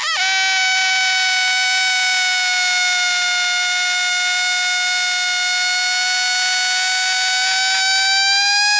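Baymax's air sound effect: a long, steady whistling tone of rushing air with a hiss over it. It dips in pitch at the onset, creeps slightly upward near the end, and then cuts off.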